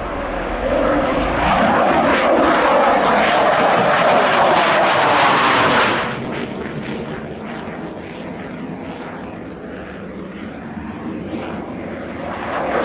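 JF-17 Thunder fighter's single RD-93 turbofan: loud jet engine noise as the jet climbs out after takeoff. It swells in the first second and holds. About six seconds in it drops suddenly to a quieter, more distant jet sound, then rises again near the end.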